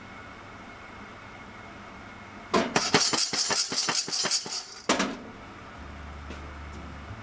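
Green coffee beans rattling inside a lidded saucepan as it is shaken over a gas burner. The burst of quick shakes, about five a second, starts about two and a half seconds in and lasts about two and a half seconds. The beans are still green and dry, in the drying stage of the roast well before first crack.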